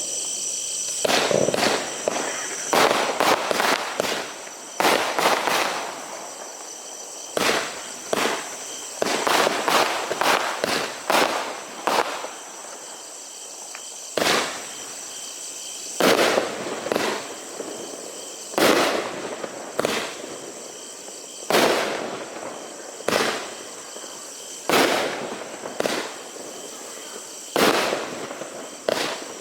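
Consumer firework battery (cake) firing a long sequence of shots, each followed by bursts and crackling, roughly every one to two seconds.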